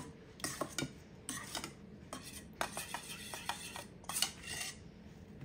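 A spoon stirring tomato sauce in a stainless steel bowl, clinking and scraping against the metal in quick, irregular strokes that stop shortly before the end.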